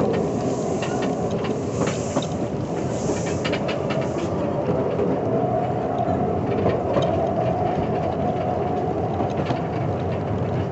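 Train rolling along narrow-gauge track: a steady rumble of wheels on rail with irregular clicks and knocks as the wheels pass over rail joints and a switch.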